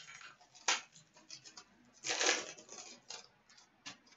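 Hockey trading cards being handled and slid through by hand. There is a sharp snap about two-thirds of a second in, a longer rustle of card rubbing on card about two seconds in, and a few lighter flicks near the end.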